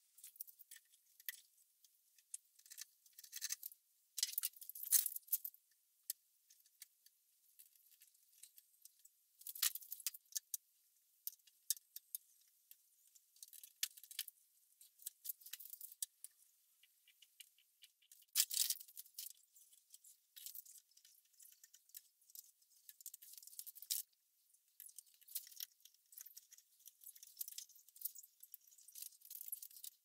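Light clicks, taps and rustles of wooden tong pieces and spring clamps being handled and set on the workbench, in irregular spurts. The sound is thin and high, with a few louder clusters along the way.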